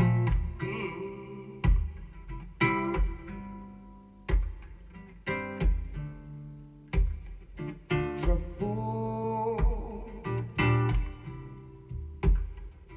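A recorded song played back through a pair of Yamaha NS-1000 loudspeakers driven by an EL84 push-pull tube amplifier, in an instrumental stretch without singing: sharp note attacks about every second, each ringing out and fading.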